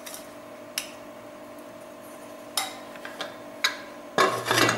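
Metal clinks and clatter of a pressure cooker's lid being handled and fitted onto the pot: a few separate clicks, then a louder burst of clatter near the end, over a faint steady hum.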